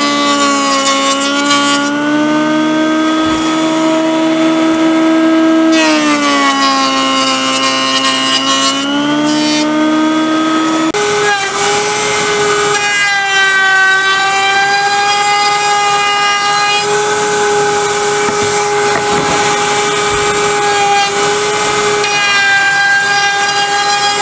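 Jointer planing the edges of an end-grain hardwood cutting board: a steady motor whine that sags in pitch twice as the board is pushed over the cutterhead, recovering in between. About eleven seconds in it gives way to a router running in a router table, a higher, steadier whine with slight dips as the board is fed along it.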